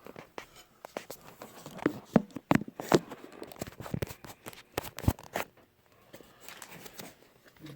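Irregular sharp clicks, taps and rustling of small parts being handled, quieter for a stretch near the end.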